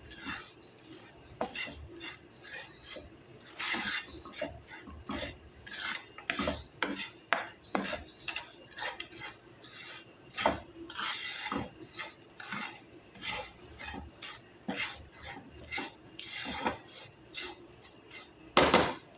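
Spatula scraping and stirring vermicelli being sautéed in ghee in a non-stick frying pan, in quick irregular strokes, with one louder scrape against the pan near the end.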